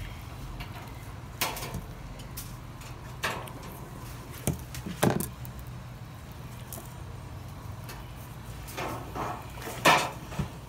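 Short, sharp clicks and knocks at irregular intervals as a chicken carcass is cut and handled on a wooden table, the loudest near the end, over a steady low hum.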